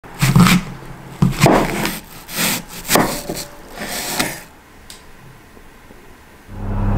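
Several irregular scraping, rubbing strokes of kitchen work, then a steady low hum starts just before the end.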